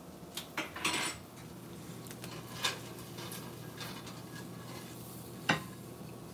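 A metal fork scraping and clinking against a skillet while breaking up fried eggs: a few separate clicks and short scrapes, with one sharp clank about five and a half seconds in as the pan is handled.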